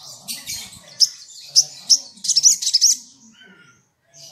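Olive-backed sunbird calling: sharp, high-pitched chirps, a few single ones, then a quick run of loud chirps about two seconds in that lasts about a second.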